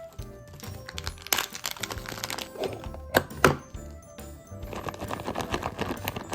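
Background music over handling sounds of plastic storage containers: a few sharp clicks and two louder knocks in the middle, then steady crinkling of packaging in the second half.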